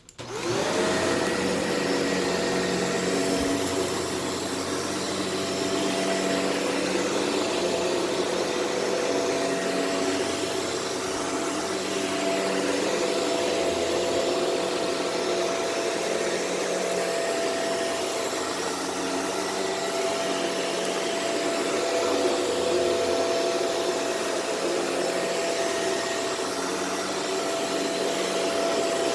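Shark Rotator Powered Lift-Away upright vacuum switching on, its motor rising in pitch over the first second, then running steadily as it vacuums deodorizing powder off a carpet.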